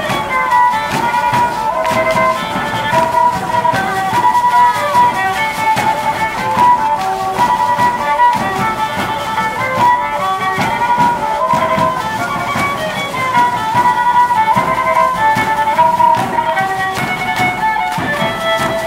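Traditional matachines dance music: a high melody instrument playing a quick, repeating tune over dense, continuous rattling from the dancers' gourd rattles.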